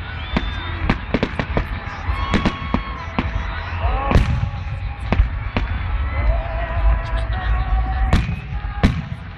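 Fireworks display: rapid sharp pops and crackles over a continuous low rumble, with heavier booms about four and eight seconds in.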